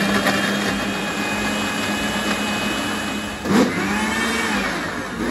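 Panasonic 1000-watt mixer grinder running steadily, blending orange with sugar and water into juice. About three and a half seconds in, the motor cuts out briefly with a knock and spins back up, and it dips again near the end.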